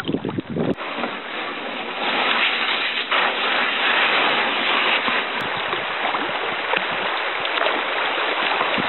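Steady hiss of shallow river water running, after a low rumbling noise that stops about a second in.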